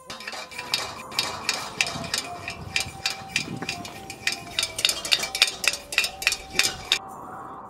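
Metallic clinks and taps of a steel pot and utensils being handled on a small stove, coming faster from about halfway through and stopping abruptly near the end, over faint background music.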